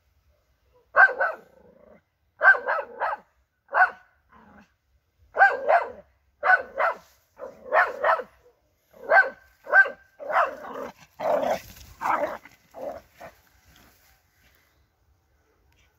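Young Jagdterrier barking at a wild boar: short, sharp barks in quick runs of two or three, the baying of a terrier being trained on boar. About eleven seconds in the barks turn rougher and run together, then stop a couple of seconds later.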